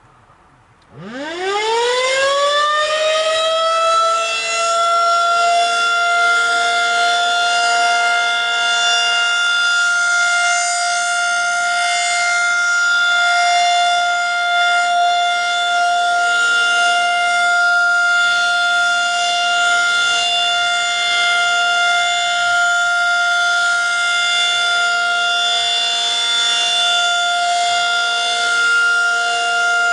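Federal Signal 2001-SRN electromechanical warning siren starting up about a second in, its pitch winding up quickly and then holding one steady tone: the Alert signal of a siren test.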